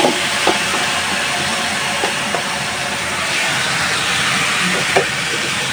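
Chopped bathua (lamb's quarters) greens with fresh green chillies sizzling steadily as they fry in oil in a pan, with a hiss of steam. There are a few light knocks of the spatula against the pan.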